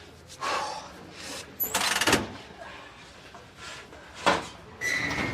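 A pizza oven's door and peel being worked: several separate knocks and scrapes, the loudest about two seconds in, with a short squeak near the end.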